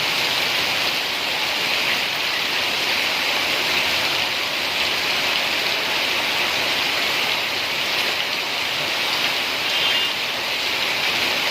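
Steady heavy rain, a dense even hiss of rain falling on surfaces.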